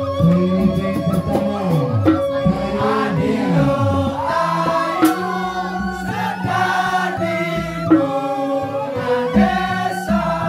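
Balinese joged gamelan music: kendang drums and the ensemble's tuned instruments playing steadily, with a voice singing sliding, arching pitches in the first few seconds.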